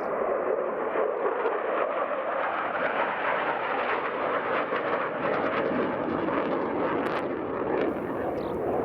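F-2 fighter's single jet engine heard in flight: a loud, steady rush of jet noise with a ragged crackle through the middle of it.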